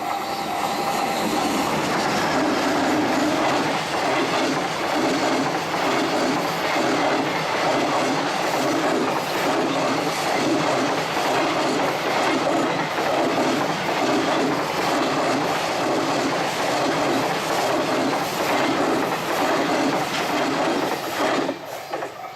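A long train passing over a level crossing: steady wheel rumble with a regular clack of wheels over rail joints roughly once a second. It drops away abruptly near the end as the train clears, leaving the crossing's warning bell ringing.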